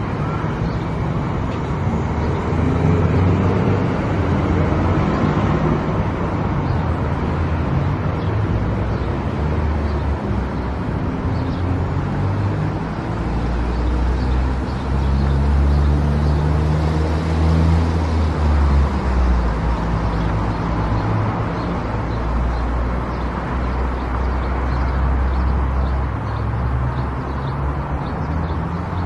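A car driving on a highway: steady tyre and road noise with a low engine hum that shifts slightly in pitch partway through.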